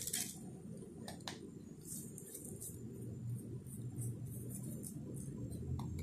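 A few light clicks of a metal spoon, then faint, quick scraping strokes, about three or four a second, as red chili sauce is spread over a flatbread.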